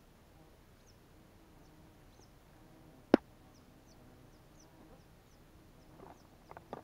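Quiet lakeside background with a small bird repeating short, high, falling chirps. A single sharp click about three seconds in, and a few softer knocks near the end.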